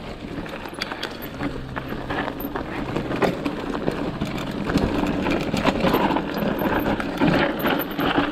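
Mountain bike rolling down a rough dry dirt trail: tyres crunching over loose ground, with frequent knocks and rattles from the bike over bumps, getting louder about halfway through.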